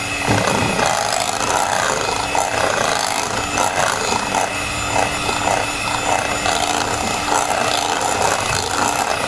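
Electric hand mixer running steadily with a constant motor hum, its twin beaters churning and scraping through thick cake batter in a bowl as the dry ingredients are worked in.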